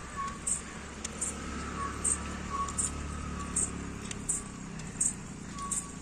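A motor vehicle's low engine rumble that fades out about four seconds in, with short faint high ticks repeating about every three-quarters of a second.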